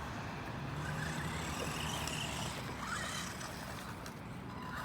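Battery-powered RC car's electric motor whining in short spurts that rise and fall in pitch, over a steady outdoor hiss.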